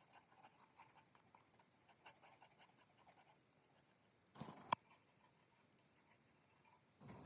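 Faint scratching strokes, typical of rust being worked off an old knife blade by hand. Two brief louder knocks come about four and a half and seven seconds in.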